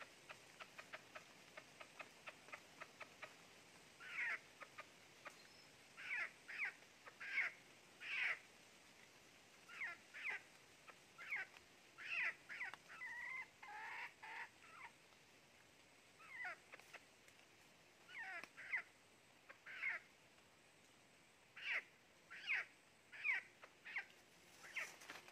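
A bird's short, mewing calls, each sliding steeply down in pitch, repeated in irregular bouts, with a quick run of fainter calls in the first few seconds.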